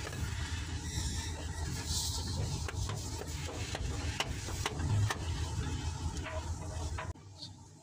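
Steady low rumble with scattered light metallic clicks and knocks of hands and tools working on an opened diesel engine's cylinder head; the rumble cuts off abruptly near the end.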